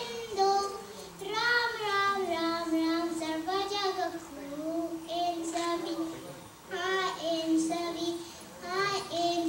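A young boy singing a Kannada devotional song solo into a microphone, in long held phrases that slide between notes, with short breaths between them.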